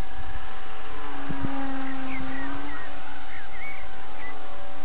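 Wind rumbling on the microphone under a thin, steady whine, with a few quick bird chirps from about two to four seconds in.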